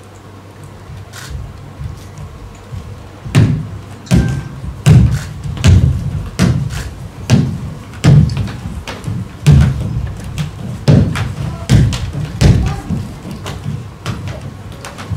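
A steady beat of heavy thuds, about one every three-quarters of a second, starting about three seconds in after a few softer knocks.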